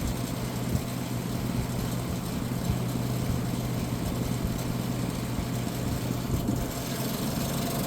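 1978 Gibson Air Sweep 5900 BTU window air conditioner running steadily: a low hum from its Tecumseh AE reciprocating compressor under the even rush of the fan air. Its condenser fan is out of balance and rubbing against the shroud.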